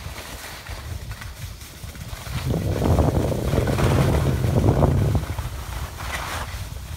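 Wind rumbling on a phone's microphone, with a louder, rougher stretch from about two and a half to five seconds in.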